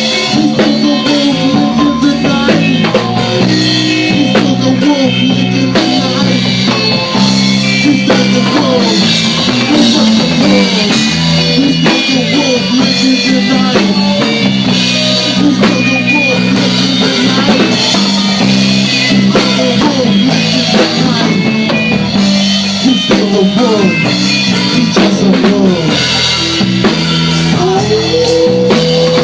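A live band playing an instrumental passage: a drum kit keeping a steady beat under a bass line and guitar, with bending notes near the end.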